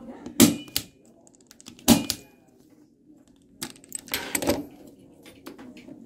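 A 110 punch-down tool snapping down on the wires of an RJ45 keystone jack: sharp clicks, two about a second and a half apart, then a cluster around four seconds in. Each snap seats a wire in its slot and cuts off the excess end.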